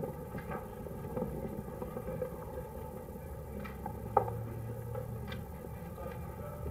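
Low steady hum and hiss with a few faint scattered clicks, one sharper click about four seconds in: the background noise of an old archival film soundtrack.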